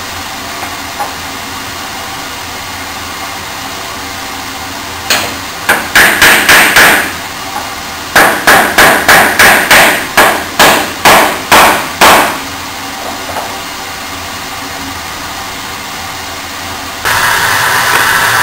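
Wooden mallet striking the end of a square wooden blank on a workbench: a quick run of about six blows, a short pause, then about eleven more at roughly three a second. Near the end a loud, steady machine noise starts up.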